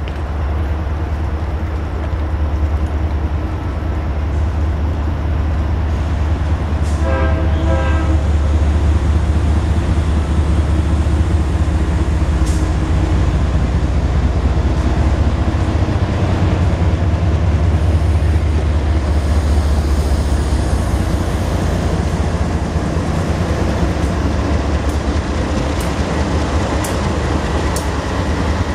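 BNSF freight diesel locomotives rumbling as a stack train approaches and passes, a low, steady, loud rumble. A train horn sounds briefly about seven seconds in, and clicks from the wheels come near the end as the locomotives go by.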